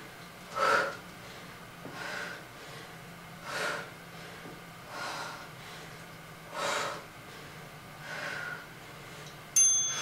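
A woman breathing hard and rhythmically, a breath about every second and a half, while pressing dumbbells out of breath from burpees. A single sharp metallic clink rings out near the end.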